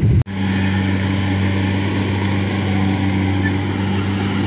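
Rice combine harvester's diesel engine running at a steady, even hum while it cuts and threshes rice. A louder, noisier sound cuts off abruptly just after the start.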